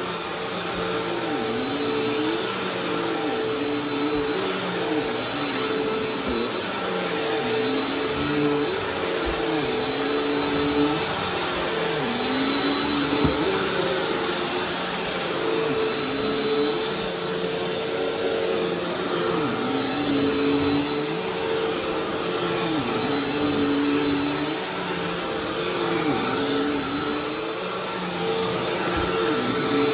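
Bissell vacuum cleaner running on carpet: a steady motor whine over a noisy rush of air. A lower note sags and recovers every two to three seconds as the vacuum is worked over the carpet.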